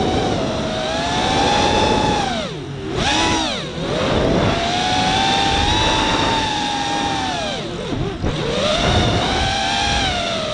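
Walkera F210 racing quadcopter's brushless motors and HQ propellers whining, the pitch rising and falling with the throttle. Twice the pitch drops sharply and climbs back, about three seconds in and again about eight seconds in.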